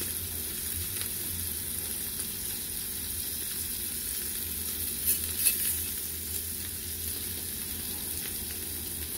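Slices of queso de rancho frying in a little oil in a nonstick pan, a steady sizzle on lowered heat. A couple of light knocks about five seconds in.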